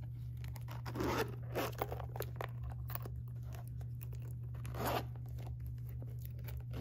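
Silver metal zipper on a cosmetic pouch being pulled open in a few short strokes, with a longer stroke about five seconds in. A low steady hum runs underneath.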